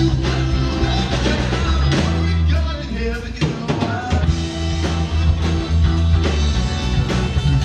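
Live rock band playing through PA speakers: electric guitars, bass and drum kit, with a steady beat.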